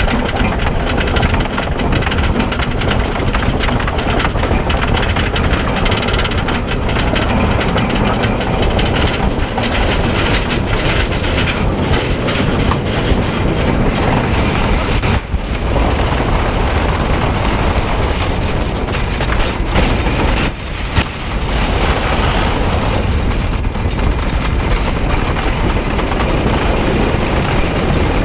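Wooden roller coaster train running on its track: clattering up the chain lift hill, then rattling loudly down the first drop and along the wooden track, with a brief dip in the noise about halfway through and again a few seconds later.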